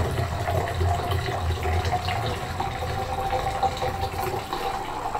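Water running from a kitchen tap into a cup, with a faint tone that rises slightly in pitch as the cup fills.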